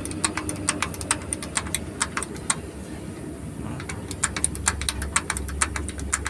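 Quick, irregular metallic clicks of a spanner working the fuel-line nuts on a diesel injection pump while they are tightened. A low engine hum underneath grows a little louder about four seconds in.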